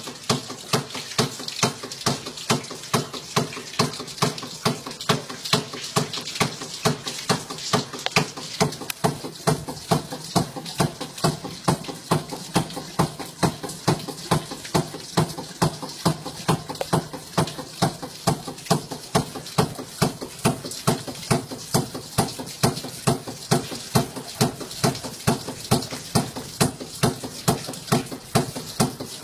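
A homemade water-pumping rig of pipes and valves clacking in a steady, even rhythm of about two knocks a second, with a low hum underneath.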